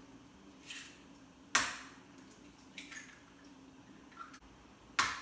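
Food preparation at a kitchen counter: a few short, sharp knocks of utensils and containers, the two loudest about a second and a half in and near the end, over a faint steady hum.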